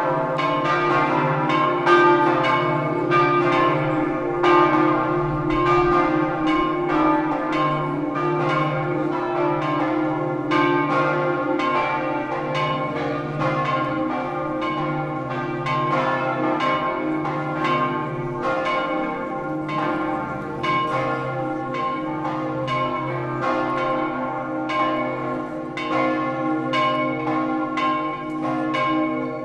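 Church bells in a campanile ringing the midday peal: several bells struck in quick succession, a few strikes a second, their tones ringing on and overlapping.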